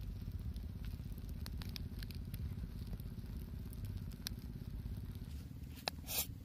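Charcoal fire under a wire grill crackling faintly with scattered sharp clicks, over a steady low rumble. Near the end, a few short brushing scrapes as a stalk brush bastes chicken on the grill.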